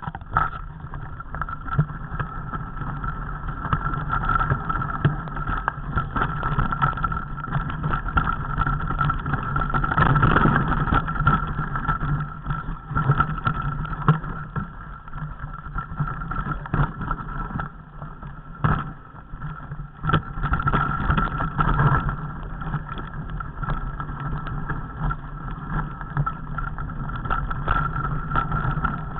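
Mountain bike riding over a rocky, stony trail: a steady rumble and hum of rolling with many sharp knocks and rattles as the bike goes over stones, loudest about ten seconds in and again about twenty seconds in.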